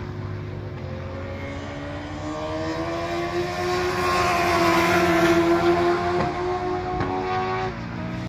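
Racing motorcycle engines running at high revs on the circuit. The note rises slowly and grows louder to a peak about five seconds in, then drops abruptly near the end.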